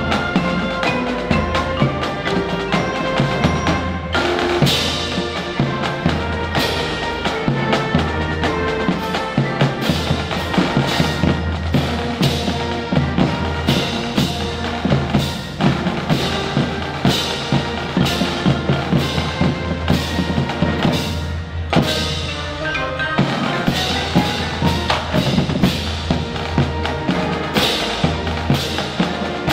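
Music with a drum kit keeping a steady beat over sustained bass notes.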